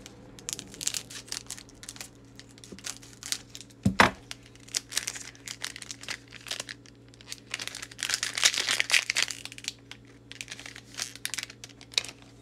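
Foil wrapper of a Pokémon card booster pack crinkling and tearing as it is opened and the cards are slid out, in short crackly bursts with a denser stretch of crinkling near the middle. A single sharp tap about four seconds in is the loudest sound.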